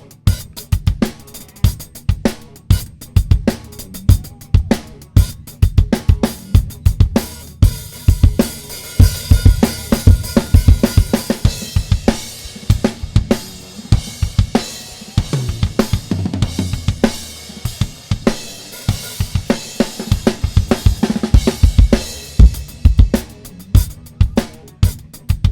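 Isolated drum-kit track from a live rock recording, played back through a DIY Calrec PQ1549 clone equaliser. Kick, snare, hi-hat and cymbals play a steady beat, and the cymbal wash grows thicker from about eight seconds in.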